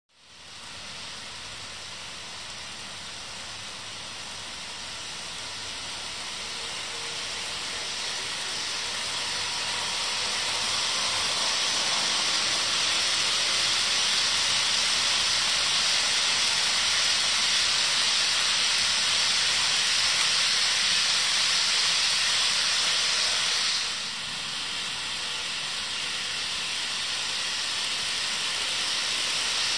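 HO scale model freight train rolling along sectional track, pulled by three GE diesel models: a steady hiss of metal wheels on the rails and the locomotives' motors and gears. It grows louder over the first twelve seconds or so as the train approaches, then holds, with a brief drop about 24 seconds in.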